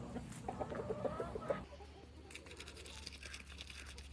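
Chickens clucking softly, a string of short calls through the first second and a half; after that they go quieter.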